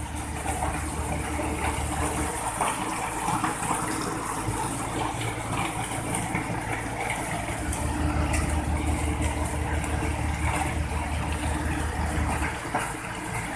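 Engine of the concrete-pouring machinery running steadily under load, with a low drone that drops away about two seconds in, comes back strongly around eight seconds and drops again near the end.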